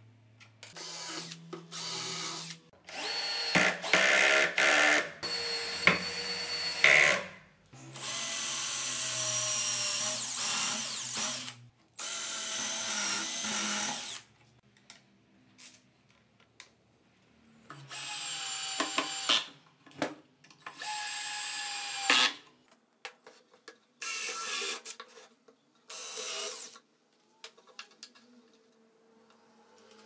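Cordless drill-driver running in repeated bursts of one to four seconds with short gaps between, drilling and driving wood screws into wood.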